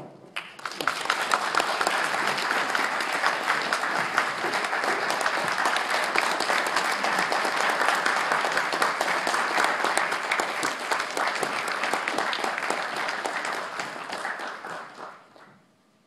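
Audience applauding steadily, a dense patter of many hands clapping that starts about half a second in and dies away near the end.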